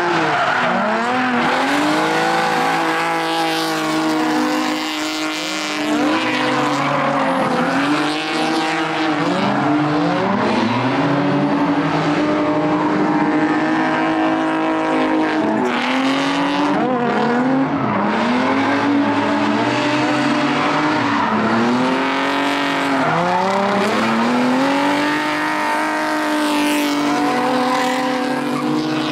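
Drift cars' engines revving hard, the pitch climbing and falling every second or two as the throttle is worked through the slides, with tyres squealing as they spin and smoke.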